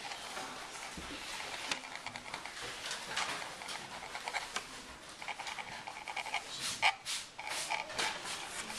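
Graphite pencil scratching on paper in a run of short, irregular strokes, close by.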